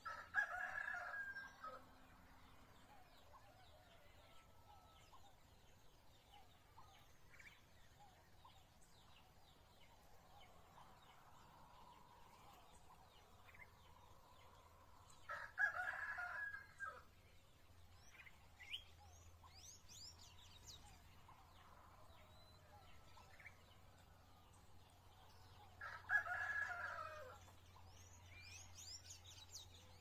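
A rooster crowing three times: at the start, about halfway through and near the end, each crow under two seconds long. Small birds chirp briefly in between.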